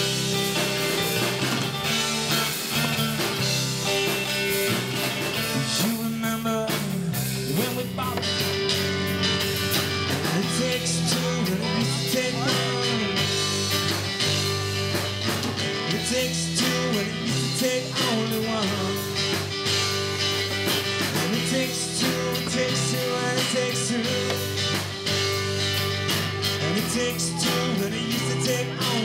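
Live amplified rock band playing an instrumental stretch: electric guitar over bass guitar and a drum kit, with long sustained guitar notes and a steady beat.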